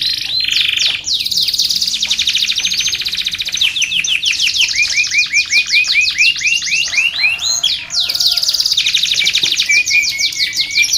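Domestic canary singing a long, unbroken song of fast trills and rolls. About halfway through comes a run of quick downward-sweeping notes.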